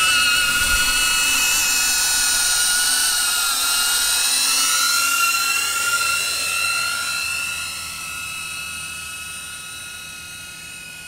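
DJI Avata quadcopter's motors and ducted propellers, a steady high-pitched whine. It grows fainter over the last few seconds as the drone moves away.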